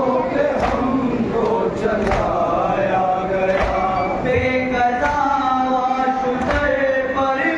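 Men chanting a noha, a Shia lament for Muharram, in unison with one voice leading at a microphone. Under the chant, a regular thud of chest-beating (matam) lands about every second and a half.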